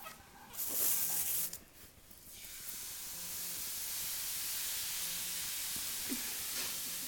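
A steady hiss, with a louder, brighter rush of noise about a second in.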